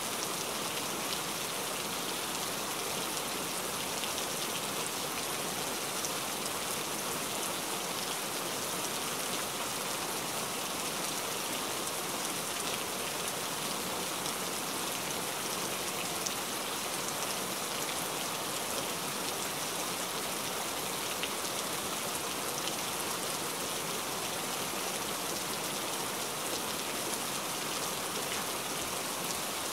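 Steady rain falling: an even hiss of rainfall peppered with many small drop ticks, unchanging throughout.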